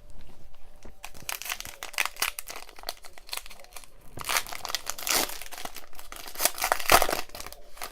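A baseball card pack's wrapper being torn open and crinkled by hand, a run of crackling rustles that grows busiest in the second half.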